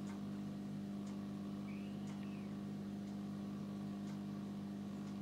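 A steady low machine hum, with faint ticks about once a second and a faint whistle that rises and falls about two seconds in.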